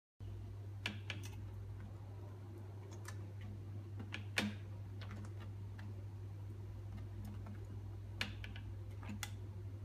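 Scattered light clicks and taps as a pet prairie dog moves about and tugs at things at a plastic pet carrier's wire door, the sharpest one about four and a half seconds in, over a steady low hum.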